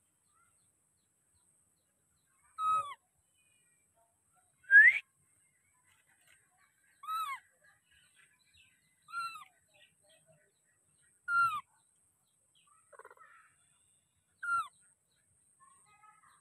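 Baby macaque giving a series of short cries, about seven of them a couple of seconds apart, each a brief note that falls in pitch. The loudest, about five seconds in, rises instead.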